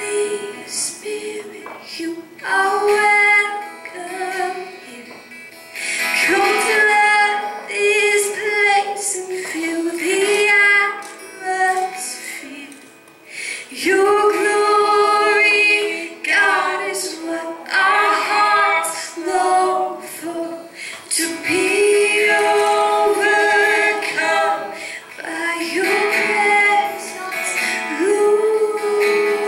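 A woman sings a worship song into a microphone in phrases of long held notes, with a man strumming acoustic guitar behind her.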